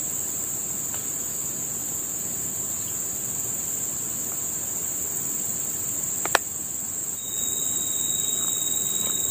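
Insects calling in a steady high-pitched drone, joined by a second, lower steady insect tone about three-quarters of the way through. A single sharp click a little past halfway.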